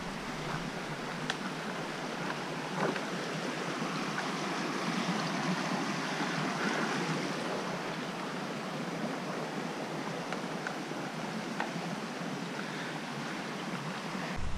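Small stream flowing: a steady, even rush of water that grows a little louder midway.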